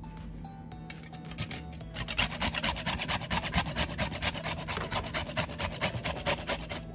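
Whole nutmeg grated on a flat stainless-steel hand grater: quick, rhythmic rasping strokes that start about two seconds in.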